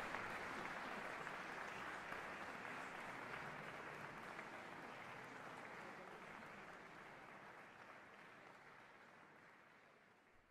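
Audience applauding, fading out steadily until it stops near the end.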